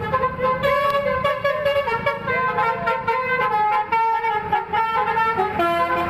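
Basuri telolet bus horn, a multi-tone air horn, playing a tune of held notes that change pitch every half second or so.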